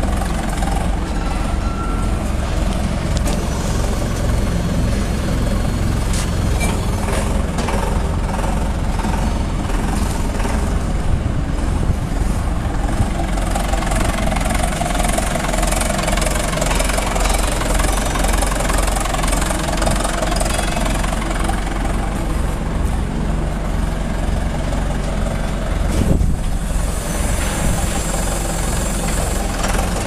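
The concrete mixer pump's engine running steadily. One loud clank about 26 seconds in.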